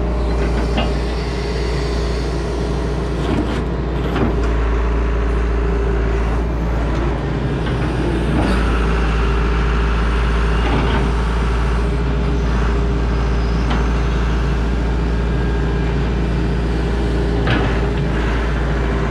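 Large tracked excavator's diesel engine idling steadily, with a few short clicks over it.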